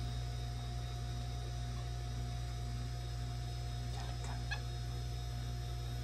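A steady low electrical-type hum with a faint steady whine above it, and a few light taps about four seconds in.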